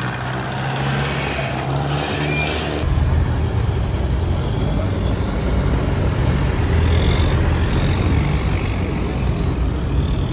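A boat's engine running with a steady low rumble, mixed with the wash of river water. It begins a few seconds in, after a short stretch of busier pier noise.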